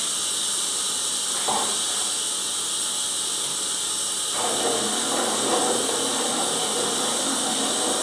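Cooled wort running from a counterflow chiller's outlet hose into a plastic fermenter: a steady hissing rush that grows fuller about four seconds in, just after the cooling-water flow has been turned up.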